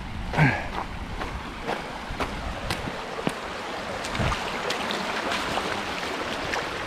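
Feet splashing through a shallow, freezing creek as a runner wades across, over the rush of the moving water; the splashing grows busier in the second half. A short vocal sound comes about half a second in.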